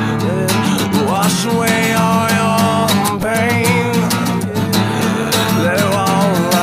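A rock song with guitars and drums playing, with a drawn-out wavering melody line over the band, likely a held vocal or lead guitar.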